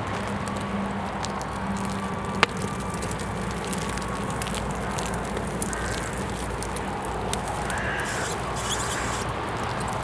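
Fire burning a painted canvas, crackling lightly over a steady rushing hiss, with one sharp pop about two and a half seconds in.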